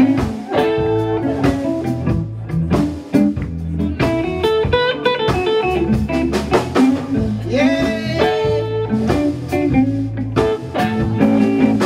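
Live blues band playing: amplified harmonica over electric guitar, bass guitar and drum kit, with held and bending notes over a steady drum beat.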